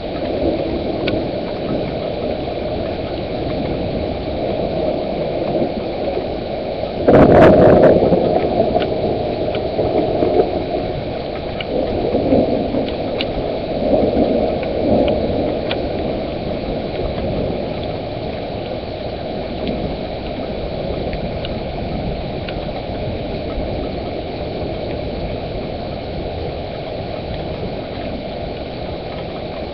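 Thunder: a sudden loud crack about seven seconds in that rolls on in rumbles for several seconds, over a steady hiss of rain.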